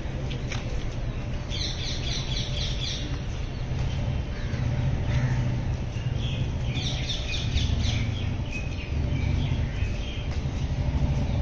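Birds chirping in three runs of rapid short, high notes, about two seconds in, midway and near the end, over a steady low rumble.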